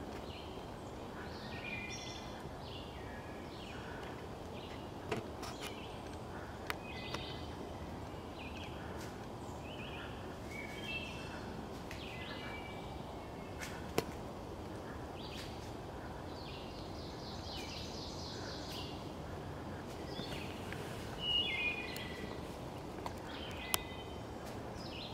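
Several songbirds singing short, repeated phrases on and off over a steady background hiss, the loudest phrase about twenty-one seconds in. A few sharp clicks or snaps stand out here and there.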